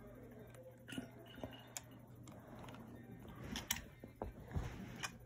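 Faint, scattered clicks and small rattles of plastic LEGO pieces being handled and fitted together.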